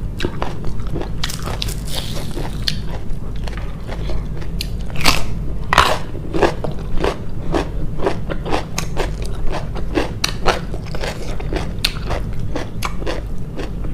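A person chewing and biting crunchy food, with a rapid run of crisp crunches, over a steady low hum.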